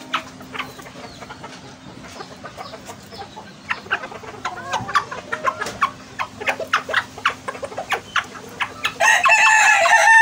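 Sebright bantam chickens pecking at cut greens on concrete: a scatter of quick sharp taps with a few soft clucks. Near the end a rooster crows loudly.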